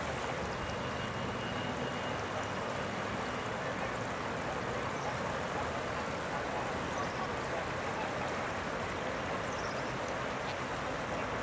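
Steady rushing of the Guadiana river in flood, its swollen brown current running fast past the submerged riverbank.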